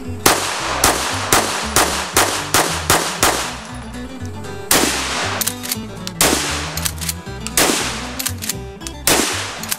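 Rapid runs of gunshots, about twenty in all, some only a fraction of a second apart, from a semi-automatic handgun and a pump-action shotgun, over background music with a steady bass line.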